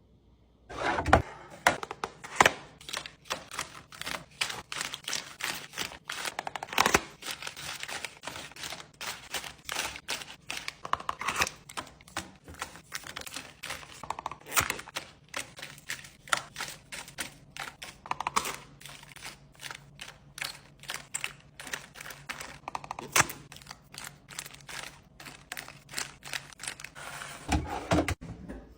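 Rapid, irregular clicks and taps of small hard objects being handled, with several louder knocks among them. A faint steady low hum sits underneath for much of the second half.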